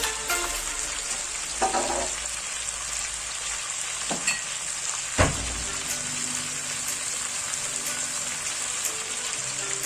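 Chicken pieces sizzling as they fry in a pan with onion, garlic, ginger and curry powder, before any water goes in. A steady hiss with a few knocks from stirring, the loudest about five seconds in.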